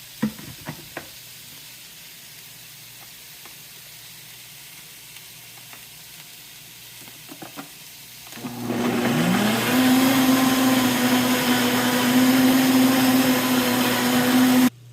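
Blender mixing a sauce: a few clicks, then about eight seconds in the motor starts, its pitch rising briefly before settling into a steady whining hum, and it cuts off suddenly just before the end.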